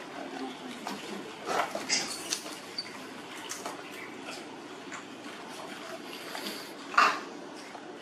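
Baby macaque making a few short, faint cries and squeaks, the loudest about seven seconds in.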